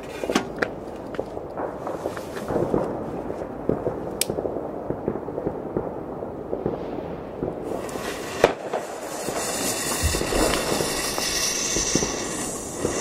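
Scattered fireworks popping and crackling, with one sharp crack about eight and a half seconds in. In the last few seconds a steady hiss builds: the fuse of a Weco Silver Hawk rocket burning down and spraying sparks before ignition.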